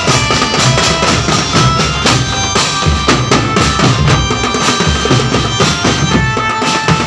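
Music with steady drumming and a sustained melody line over it.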